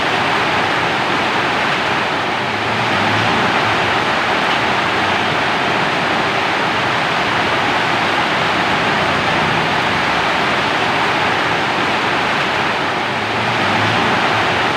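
Steady, heavy rainfall: an even, unbroken hiss.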